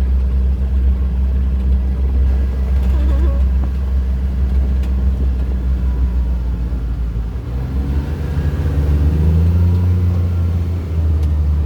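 ATV engine running while riding, with a steady low drone; about two thirds of the way through its pitch rises as it speeds up.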